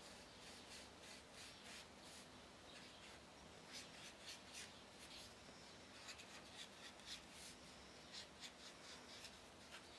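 Felt-tip marker drawing on paper, a faint string of short scratchy strokes as the tip traces a wavy outline.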